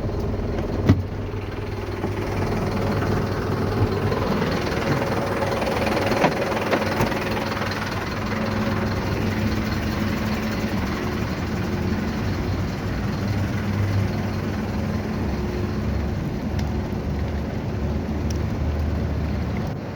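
Tow truck engine idling steadily, with a sharp click about a second in and a few light knocks a few seconds later.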